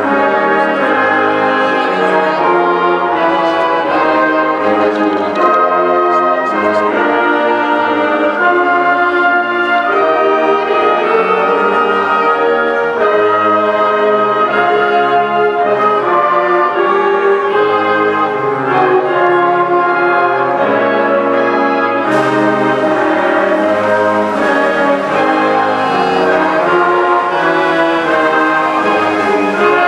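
Concert band playing the school alma mater: a slow, hymn-like tune in sustained brass-led chords that change about once a second.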